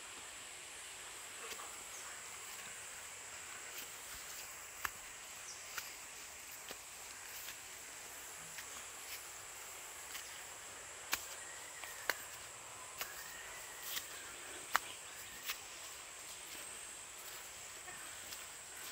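Steady high-pitched insect drone, with sparse sharp clicks and crackles of footsteps on dry leaves and twigs.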